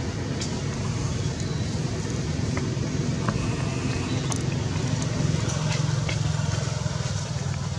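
Steady low engine hum, a little louder about five seconds in, with a few faint clicks.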